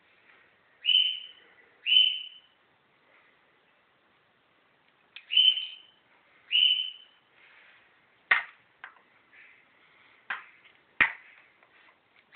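A bird calling four times with short, high single notes, each under half a second. In the second half, several sharp clicks of hard objects handled or tapped on a tile floor.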